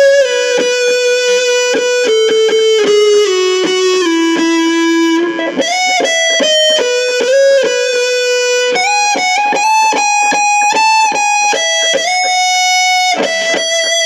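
Electric guitar playing a single-note melody through a compressor and clean boost with a delay pedal added. Long held notes step downward over the first few seconds, then quicker picked notes climb higher until the playing stops near the end.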